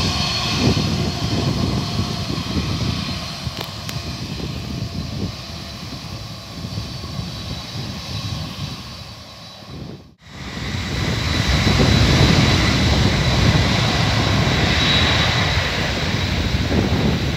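Boeing 767-300ER jet engines running as the airliner rolls down the runway: a steady high whine over a low rumble. The sound cuts out abruptly about ten seconds in, then returns louder as the engines are at takeoff power.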